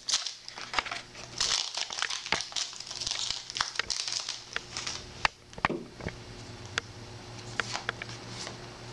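Foil wrapper of a Yu-Gi-Oh trading-card booster pack crinkling as it is opened and handled. After about five seconds this gives way to scattered sharp ticks and flicks as the cards are handled.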